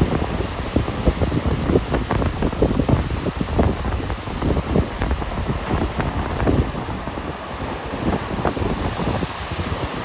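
Wind buffeting the microphone in irregular gusts, with ocean surf breaking and washing up the beach underneath.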